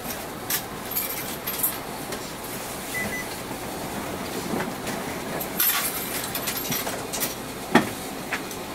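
Mitsubishi Aero Star one-step city bus heard from inside the cabin: steady running noise with scattered rattles and clinks from the fittings, and a sharper knock near the end.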